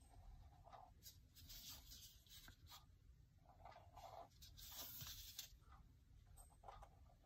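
Faint scratching of a fine-tip drawing pen on watercolour paper in short, quick strokes. About five seconds in comes a longer, brighter rustle of paper sliding as the sheet is turned on the table.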